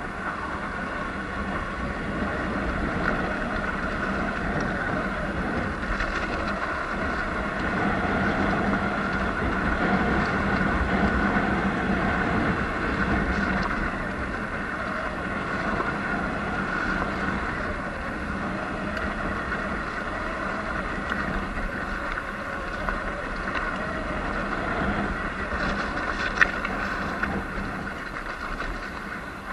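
Sur-Ron Light Bee X electric dirt bike riding on a rough dirt road: a steady electric motor and drivetrain whine over road noise, with wind on the microphone.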